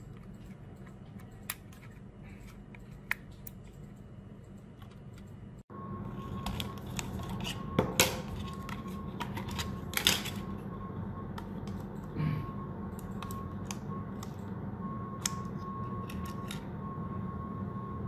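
Small plastic clicks and taps from handling a GazingSure video doorbell's housing and battery compartment, its back cover being worked off and its batteries and SD card taken out. The clicks are sparse at first and come more often after about five seconds, the two loudest a couple of seconds apart.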